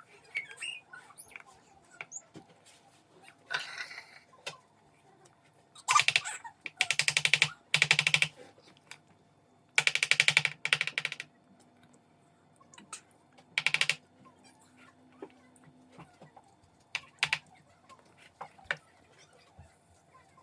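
Bursts of rapid clicking or rattling, a second or two each: a long stretch about six to eight seconds in, another around ten seconds, and a short one near fourteen seconds.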